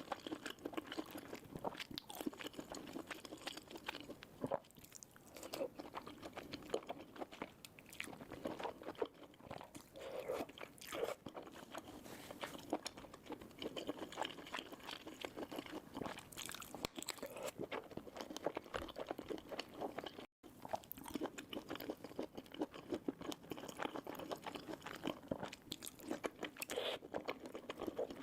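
Close-miked eating of crunchy food: dense, irregular crunching and chewing with bites, broken by a split-second gap about two-thirds of the way through.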